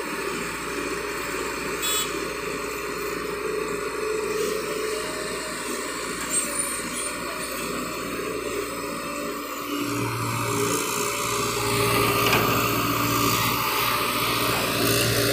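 JCB 81 tracked excavator's diesel engine running steadily under hydraulic load while it digs and swings a bucket of soil. About ten seconds in, a deeper steady hum joins in and the sound gets a little louder.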